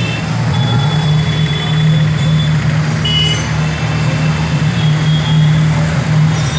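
Street traffic: a steady low engine drone from motorcycles and other vehicles on the road, with a few short high tones over it.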